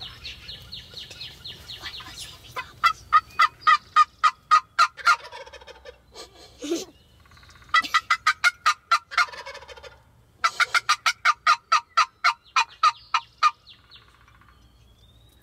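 Wild turkeys calling: three loud runs of rapid, evenly spaced notes, each a couple of seconds long, with a fainter high trill before them.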